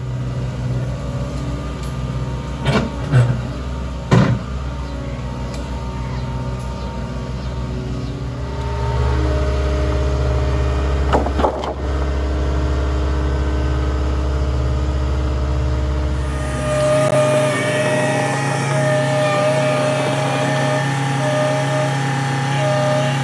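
Skid steer engine running steadily, with a few sharp metallic clanks, and getting louder about nine seconds in.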